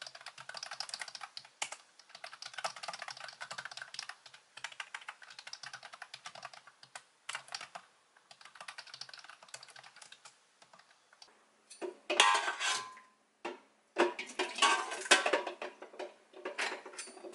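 Fingers typing on a computer keyboard with rapid, uneven key clicks for about eleven seconds. Then louder splashing and clattering of water and eggs in a stainless steel bowl in a sink.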